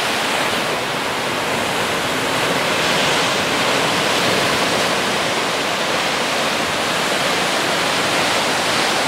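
Ocean surf breaking over rocks on a rocky shore and washing back through them in foam: a steady rushing wash that swells a little about three seconds in.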